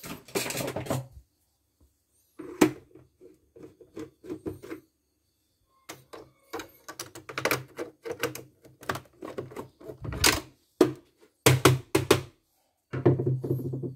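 Irregular clacks and knocks from hands handling a CNY portable embroidery machine's plastic body and parts on a wooden bench, coming in short clusters with brief pauses between them.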